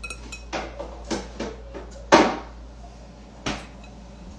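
Kitchen cabinets being opened and shut: about six short knocks and bumps, the loudest about two seconds in.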